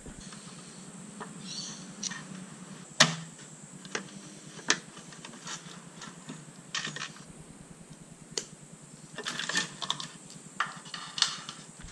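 Scattered light clicks and small metallic knocks from hand tools and bicycle parts being handled as the old mechanical derailleur and shift cable are taken off, a few sharp ones spread out and a quicker run of small clicks near the end.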